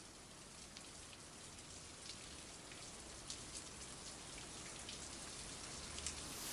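Light rain falling on a window: a faint, even hiss with scattered small ticks of drops, slowly growing louder.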